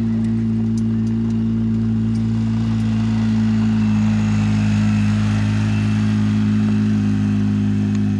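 A steady low engine hum, holding one pitch throughout, with a faint hiss above it that swells slightly in the middle.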